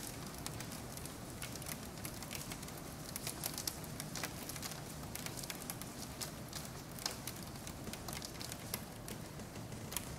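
Hailstones pelting down onto a paved yard, a steady dense crackle of many small impacts.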